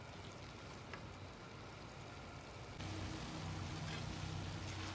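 Chicken and onion pieces sizzling faintly in a wok, simmering in oyster sauce and a little water, with light clicks of a silicone spatula stirring. About three seconds in, the sizzle gets louder and a low steady hum joins it.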